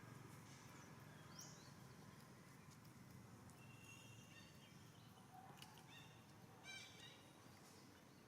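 Faint, short high-pitched animal calls and squeaks, a few scattered through, the most prominent a cluster of chirps about six to seven seconds in, over a quiet low hum.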